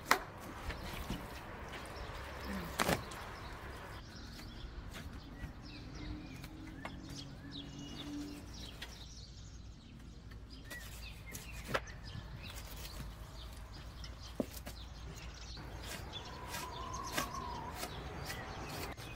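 Lamb carcass being butchered: a few sharp knocks of a blade striking meat and bone, several seconds apart. Small birds chirp faintly over a steady low background noise.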